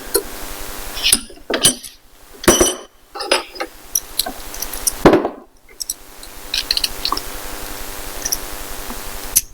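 Hand tools working the metal case of a vintage cabinet lock open: several sharp metallic clinks and knocks in the first half, then lighter clicks and scraping.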